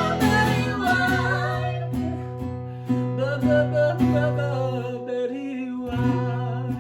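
Music on a plucked string instrument, with a wavering melody line over it. The low notes drop away briefly about five seconds in and then return.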